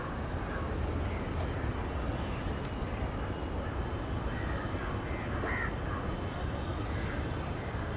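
Crows cawing a few times over a steady low outdoor rumble, with short high bird chirps now and then.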